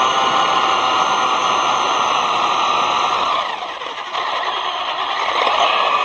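Brushless electric motor and gear drive of a ZD Racing Pirates 2 RC truck whining at speed over a rough tyre-noise hiss, the pitch swelling and easing with the throttle. A little past halfway the whine drops and quietens briefly as it slows, then winds back up.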